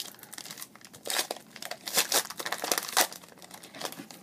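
Foil wrapper of a Topps Tribute trading card pack being torn open and crinkled as the cards are pulled out: a quick run of sharp crackles, thinning out near the end.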